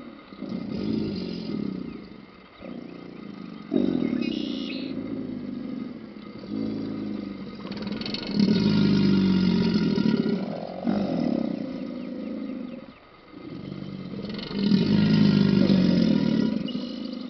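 Several American alligators bellowing in chorus: a run of deep, low bellows, each a second or two long, one following another, the loudest about halfway through and near the end. Bellowing is the alligators' mating-season call.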